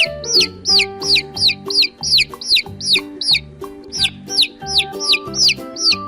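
Baby chick peeping: a steady run of short, high, downward-sliding peeps, about three a second.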